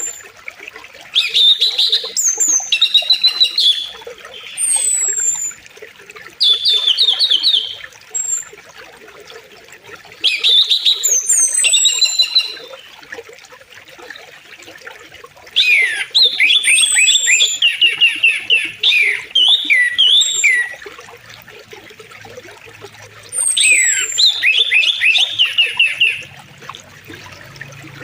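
Songbirds singing short phrases of quick falling notes, repeated every few seconds, with a longer run of song about halfway through, over the faint steady rush of a flowing river.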